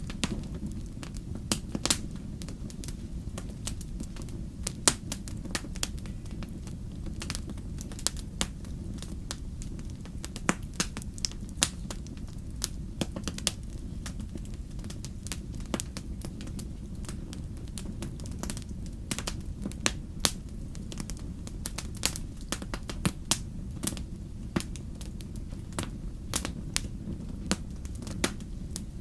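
Wood fire crackling in a fireplace: irregular sharp snaps and pops, several a second, over a steady low rumble of the burning fire.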